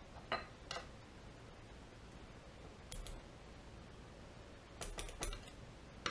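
Scattered light clicks and taps of small metal carburetor parts and tools being handled: two early, one midway, a quick cluster about five seconds in, and a louder clatter at the end.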